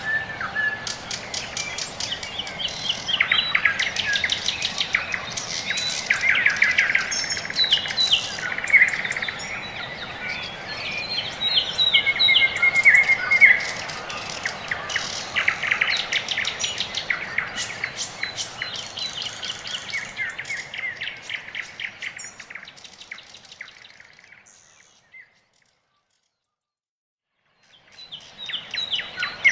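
Songbirds chirping and singing in rapid trills over a soft background hiss. The birdsong fades out about three quarters of the way through, stops completely for a few seconds, and starts again near the end.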